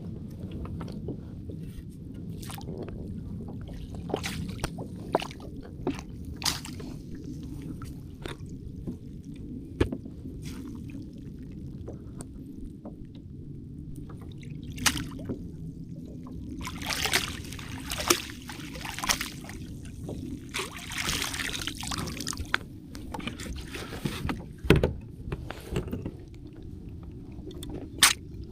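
Water sloshing and lapping around a kayak over a steady low rumble, with scattered clicks and knocks of gear against the hull. There are a few louder splashy stretches about two-thirds of the way through and a sharp knock near the end.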